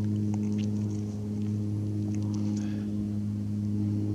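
A steady low mechanical hum with several evenly spaced overtones, unchanging throughout, with a few faint short high ticks in the first three seconds.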